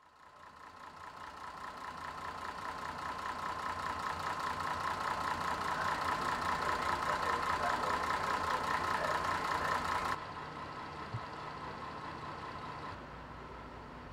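Diesel train engine running at a standstill, a steady idling sound that fades in and grows louder for about ten seconds, then drops suddenly to a quieter, steady hum.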